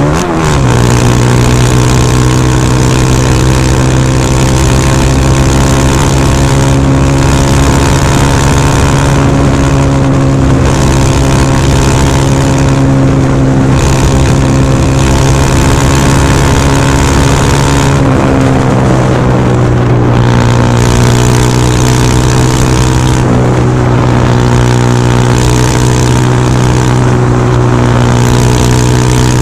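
KTM Duke 390's single-cylinder engine running through a Remus S-Flow exhaust with no catalytic converter, holding a steady note while the bike is ridden on the road. The pitch drops right at the start, then dips and climbs back about two-thirds of the way through.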